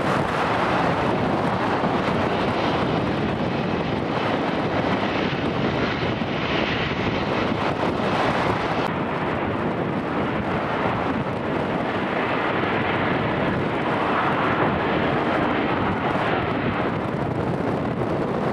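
Airliner engines making a steady rush of noise, with wind buffeting the microphone.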